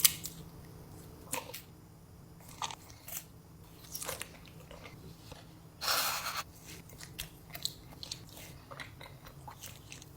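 Close-miked eating: a person biting and chewing food, a string of short crunchy mouth sounds with a louder, longer bite about six seconds in.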